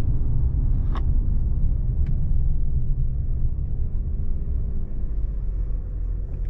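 Steady low rumble of a truck driving, heard from inside the cab during a brake test, with no brake squeak heard. Two short clicks come about one and two seconds in.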